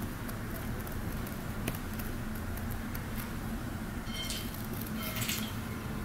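Canary bathing in a shallow dish of water: small wet splashes and drips, with two short spells of louder splashing around four and five seconds in, over a steady low hum.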